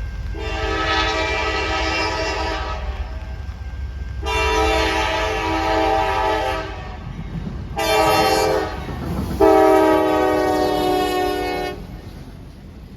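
Freight locomotive's multi-chime air horn sounding the grade-crossing signal: two long blasts, a short one, then a long one, over the low rumble of the approaching train. The long-long-short-long pattern is the standard warning for a road crossing ahead.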